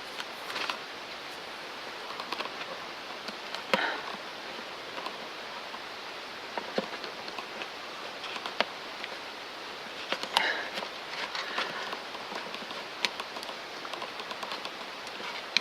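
Scattered small clicks and short rustles of hands handling vinyl tape while wrapping it around an engine part, over a steady hiss; the engine is not running.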